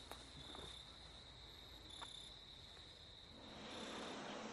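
Crickets chirping faintly in a steady high trill. A little after three seconds in, a soft hiss rises as fine white grains are poured.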